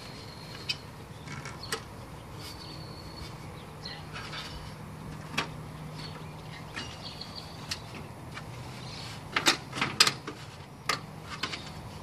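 Sharp knocks and clacks of mobile-home skirting panels being worked loose and pulled apart by hand, scattered at first and then a quick cluster of them near the end, over a steady low hum.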